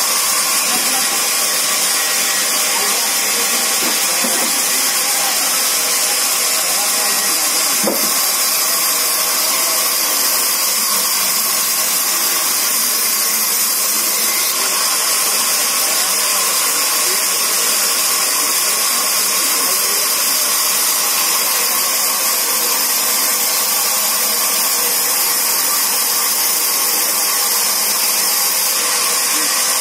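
Sawmill band saw running steadily, a constant loud whir with a high hiss, with a single knock about eight seconds in.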